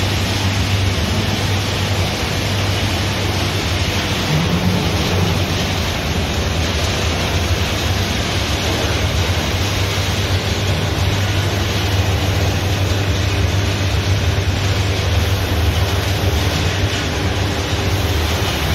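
HOMAG Weeke Vantage 100 CNC machining centre running with its dust extraction: a steady low hum under an even rush of air, with no separate cuts or knocks standing out.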